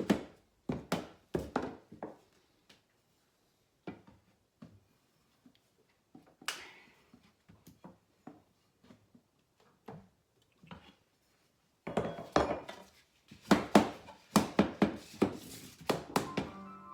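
Tongue-and-groove hardwood flooring boards being tapped into place with knocks of wood on wood. There are a few knocks at the start, scattered faint taps and a brief scrape through the middle, then a quick run of knocks near the end.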